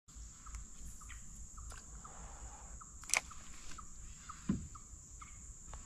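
Insects droning on one steady high note, with a string of short chirps over it. A sharp click comes about three seconds in and a low knock about a second and a half later.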